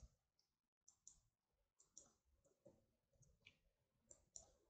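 Faint, scattered clicks of a computer keyboard and mouse, about a dozen short clicks in all, as numbers are typed into a software field.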